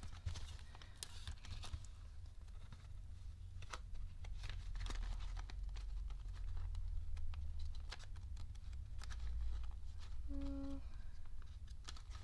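Clear plastic binder pockets and paper bills rustling and crinkling as they are leafed through by hand, with scattered light clicks of the pages and rings.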